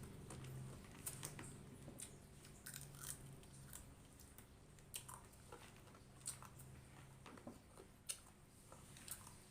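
Someone quietly chewing and biting fried chicken and rice, with scattered small crisp crunches and clicks.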